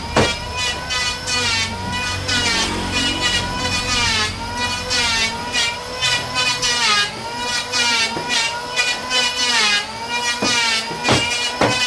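Electric woodworking power tool running on wood, its motor pitch sagging and recovering several times as it takes the cut.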